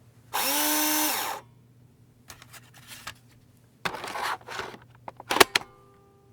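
A power drill runs for about a second, its whine rising as it spins up and then holding steady. Later there is a short rough scraping burst, then a cluster of sharp knocks.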